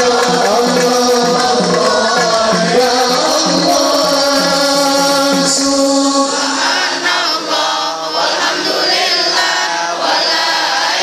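Sholawat devotional singing over the stage loudspeakers, with a steady percussion beat of about two strokes a second under the melody. About six seconds in the beat stops and the voices carry on alone as group singing.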